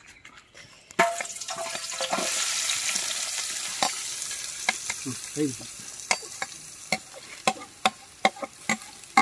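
Sliced onions dropping into hot oil in an aluminium pot: a sudden loud sizzle starts about a second in and slowly dies down. Sharp clicks come throughout as a metal skimmer scrapes the onions off a ceramic plate against the pot.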